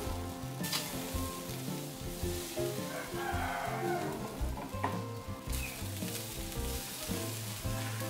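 Duck meat sizzling on a wire grill over a charcoal stove, with a couple of sharp clicks, over background music.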